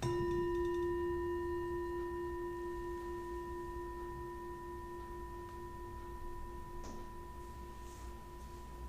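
Metal singing bowl struck once with a wooden mallet to mark the start of the practice, ringing with a low main tone and several higher overtones. The highest overtones die away within about a second while the main tone rings on, slowly fading.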